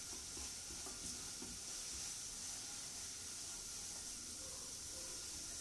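Faint, steady sizzling of a barfi mixture (milk powder, sugar syrup and oil) cooking in a nonstick frying pan while it is stirred with a silicone spatula.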